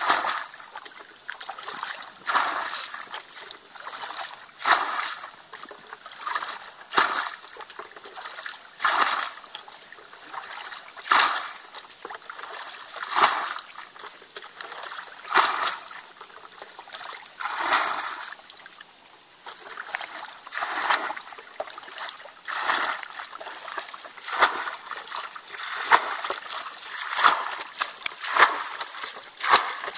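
Muddy water being bailed out of a shallow ditch with a plastic bucket: a splash of scooped and thrown water about every two seconds, coming a little faster near the end.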